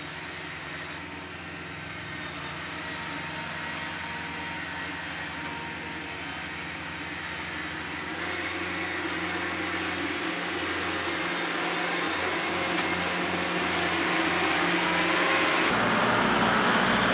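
Kubota MX5400 hydrostatic-drive tractor's diesel engine running steadily. It grows gradually louder and changes tone shortly before the end.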